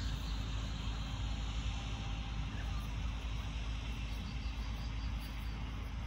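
Steady outdoor ambience: a low, uneven rumble with faint, quick high chirping from insects about four seconds in.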